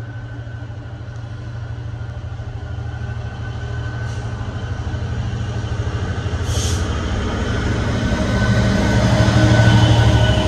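A train approaching, its steady low hum growing louder and peaking near the end, with a brief hiss about six and a half seconds in.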